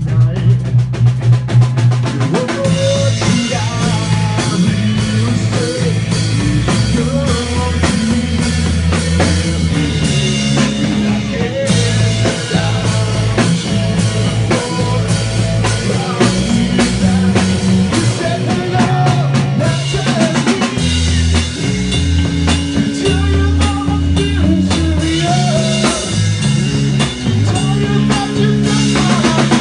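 Hard rock band playing live: a drum kit over bass and electric guitar, with no singing. A pulsing low note opens it, and the full band comes in about two seconds in.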